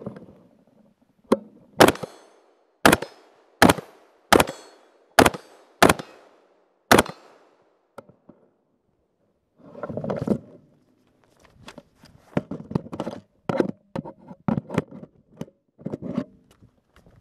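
About seven shots from a 5.56 AR-15 carbine, the BCM Jack Carbine, fired at a steady pace roughly a second apart. Later come a short rustle and then a run of lighter clicks and knocks.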